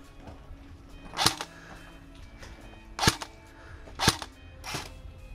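Airsoft rifle firing single shots, four sharp cracks at uneven intervals about one to two seconds apart.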